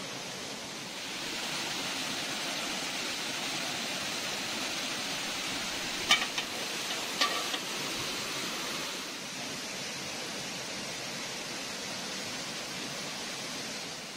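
Steady rushing of running water, with a few sharp clicks about six and seven seconds in.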